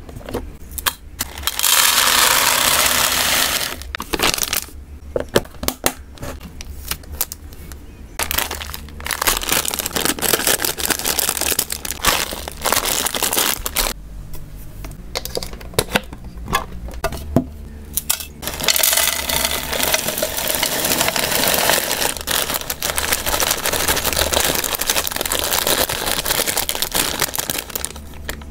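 Dry hamster food being packed into plastic storage containers: sharp clicks and knocks of plastic containers and their snap-lock lids, crinkling of the food bags, and long rustling pours. The longest pour, near the end, is dried herb mix sliding out of a bag into a clear plastic tub.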